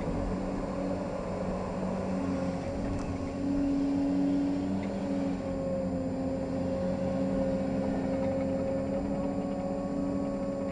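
Caterpillar 385C excavator's diesel engine and hydraulics running under load, heard from inside the cab as a steady drone with a whine. It swells for about a second a few seconds in as the boom comes down and the bucket digs into the dirt.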